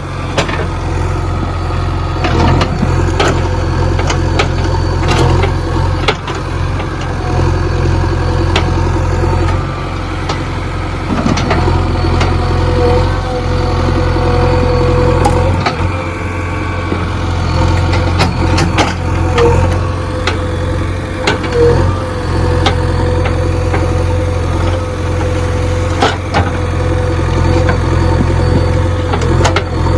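Diesel engine of a JCB 3DX backhoe loader running steadily with a deep, even hum and a few short knocks; a steady whine joins about a third of the way in.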